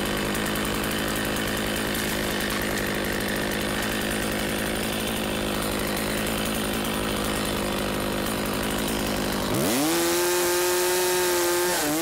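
Two-stroke chainsaw idling steadily, then revved to full speed about nine and a half seconds in and held there for about two seconds as it cuts into a felled Douglas fir trunk, its pitch dropping again near the end.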